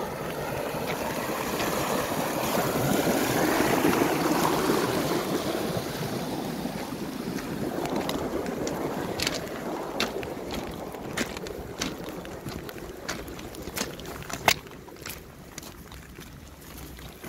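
Stormwater gushing out of a culvert pipe into a concrete drainage channel, a steady loud rushing that fades over the first half. Through the second half, sharp irregular clicks and crunches of footsteps on trackside ballast and grass.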